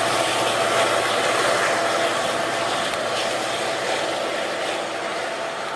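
MBTA F40PH-type diesel commuter-rail locomotive running as it approaches, a steady heavy engine drone that eases off slightly near the end.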